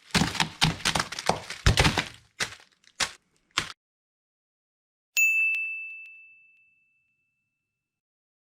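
A quick, uneven string of sharp clicks and knocks, then three separate knocks, then a single bright metallic ding that rings out and fades over about a second.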